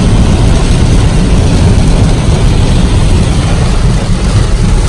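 Inside a car driving through heavy rain: a loud, steady rush of rain on the windshield and body over a deep rumble of tyres and engine.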